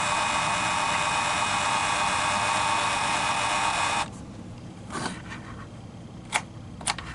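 Dymo LabelManager 160 label maker printing a label, its feed motor whirring steadily for about four seconds and then stopping, followed by a few sharp clicks.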